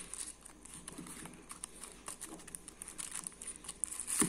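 Paper packaging rustling and crinkling as it is handled, with scattered faint small clicks.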